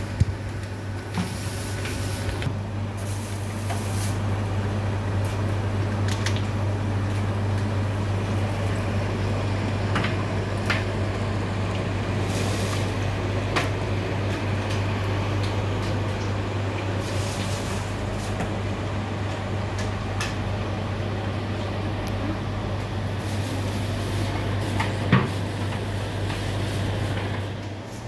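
A steady low mechanical hum, with a few light clicks and knocks scattered through it.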